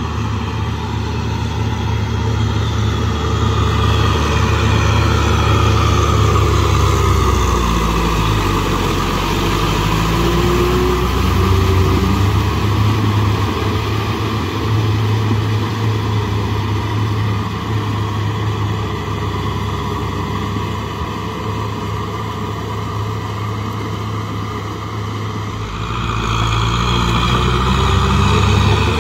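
Kubota M6040SU tractor's diesel engine running steadily under load while tilling and pushing mud in a flooded paddy field. Its note sags in pitch a few seconds in and picks back up, and the engine gets louder near the end.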